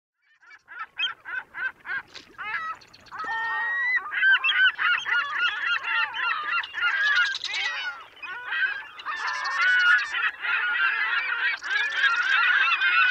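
A flock of birds calling. Single calls come about once a second at first, then many overlapping calls from about three seconds in.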